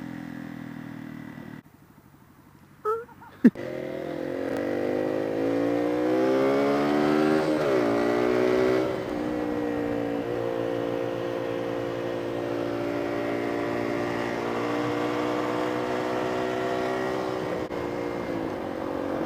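Honda supermoto motorcycle engine pulling up through the revs for several seconds, then holding a steady cruise. About two seconds in, the sound drops away briefly and two sharp clicks are heard.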